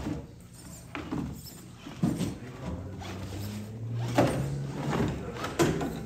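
Electric motor and gear drive of a 1/10-scale RC rock crawler whining at low speed as it climbs, the pitch rising in the middle, with several sharp knocks of tyres and chassis against the obstacle.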